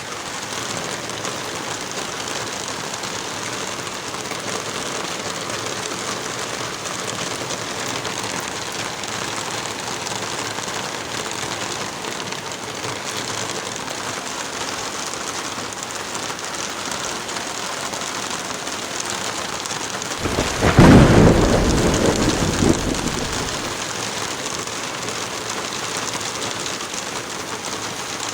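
Heavy rain falling steadily. About twenty seconds in, a clap of thunder breaks out and rumbles for two or three seconds before fading back under the rain.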